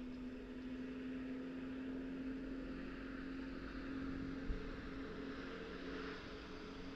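A motor vehicle's engine running steadily, a constant hum over a hiss. One short low thump comes about four and a half seconds in.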